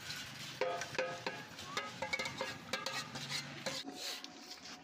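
A long-handled metal spoon stirring yogurt into a large aluminium cooking pot of chicken korma, clinking and scraping against the pot with many quick metallic knocks, some ringing briefly.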